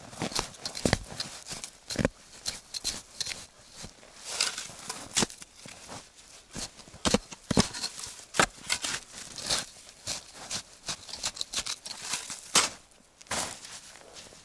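Shovel chopping and scraping into snowy, frozen soil: a run of irregular sharp crunching strikes, a few a second.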